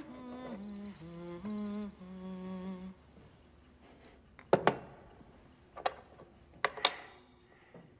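A person humming a slow, simple tune in stepwise notes, stopping about three seconds in. Then four sharp knocks: a loud one about halfway through and three more toward the end, two of them close together.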